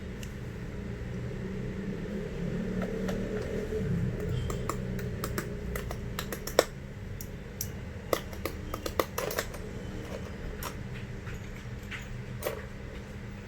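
Scattered light clicks and taps of small hard objects being handled, thickest in the middle, with one sharper click among them, over a steady low hum.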